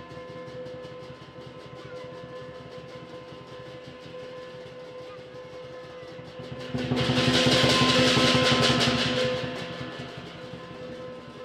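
Southern lion dance percussion: fast, even drumming throughout, swelling about seven seconds in to a loud crash of cymbals with the drum for roughly two and a half seconds before easing back.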